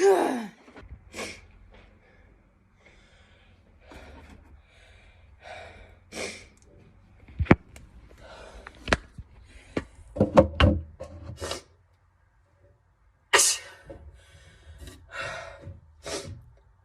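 A woman sneezing in rapid fits, with sharp gasping breaths between the sneezes. The loudest sneezes come in a quick cluster about ten seconds in and again near thirteen seconds.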